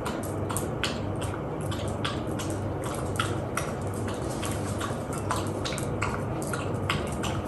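A dog at its feeding bowl, making irregular light clicks and taps against the bowl, about two or three a second, over a steady low hum.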